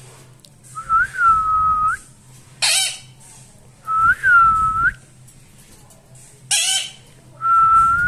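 Three drawn-out whistled notes, each about a second long on one steady pitch with a quick upward flick at each end. Between them come two short, harsh screeches from an Indian ringneck parakeet.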